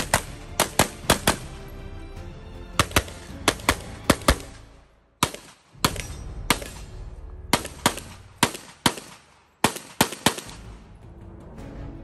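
9mm Canik SFx Rival pistol firing fast strings of shots, several quick bursts of four to six rounds each with short pauses between.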